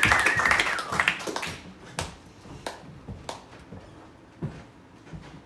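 Small audience clapping, with a cheer held over it, dying away about a second and a half in; then a few isolated claps or taps.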